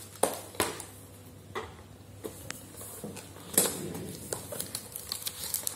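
Cardboard tablet box and its inner tray being handled: a string of light knocks, taps and scrapes as the lid and packing are lifted and set down.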